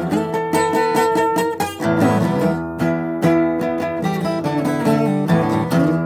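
Acoustic guitar strummed in a quick, steady rhythm, a chord riff fretted high up the neck.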